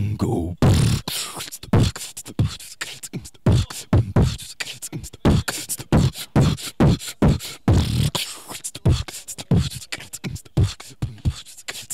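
Beatboxing: a sparse vocal-percussion beat of deep kick sounds and sharp hissy snare sounds, about two hits a second, with short silences between them.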